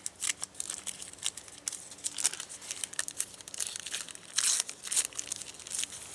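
Crinkling and crackling of something being handled, likely wrapping or a makeshift tray, as an irregular run of crisp crackles with louder bursts about two and four and a half seconds in.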